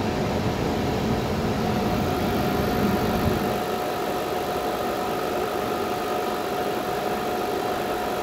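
Elevator air conditioner's compressor and fans running steadily: a hum with a steady whining tone on top. The deeper rumble eases about three and a half seconds in.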